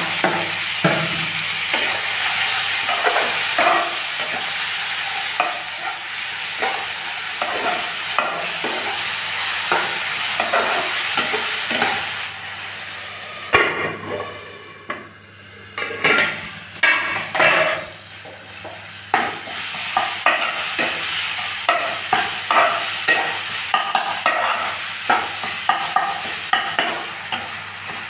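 Chopped tomato, onion, green chilli and garlic-ginger frying in oil in a non-stick kadai, sizzling while a steel ladle scrapes and stirs through it in short strokes. About halfway there is a sharp clack, and the sizzle goes quieter for a couple of seconds while a lid covers the pan. Then the scraping strokes start again, quick and regular.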